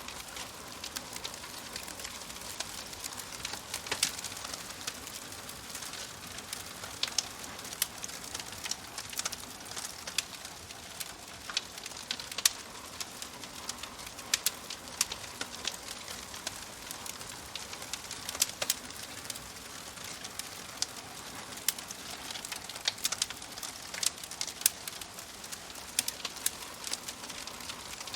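Crackling fire: a steady soft hiss with irregular sharp pops and crackles, several a second, a few of them louder.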